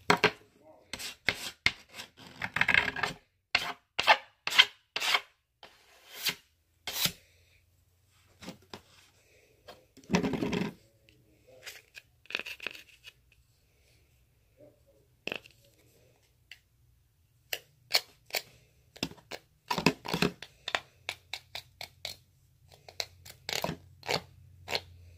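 A plastic card scraping and stirring slime in a container: a run of irregular sharp clicks and taps with a few longer scraping, rubbing strokes.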